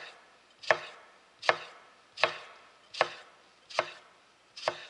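Kitchen knife slicing a lemon into rounds on a wooden cutting board: a steady run of cuts about three-quarters of a second apart, each ending in a sharp knock of the blade on the board.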